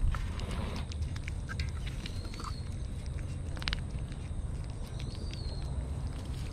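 Kitten eating wet cat food from a metal tray: small wet lapping and chewing clicks over a steady low rumble. A short rustle comes near the start as a treat is squeezed out of its pouch onto the tray, and one louder click comes a little past halfway.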